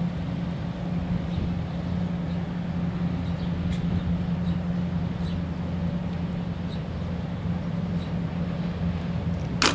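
Steady low drone of a ship's engine, with a single sharp click near the end.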